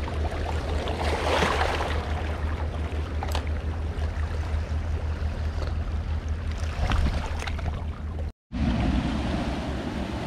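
Sea water washing over shoreline rocks, with a low wind rumble on the microphone and a few light clicks. The sound drops out for a moment about eight seconds in.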